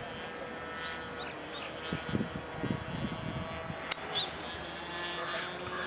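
ASP 25 two-stroke glow (nitro) model engine on an RC plane running steadily at flying speed overhead, a constant high-pitched drone.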